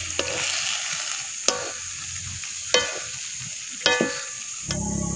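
Water spinach stir-fry sizzling in an aluminium wok while a wooden spatula stirs it. The spatula strikes the wok four times, each a sharp, briefly ringing clack. The sizzling stops a little before the end.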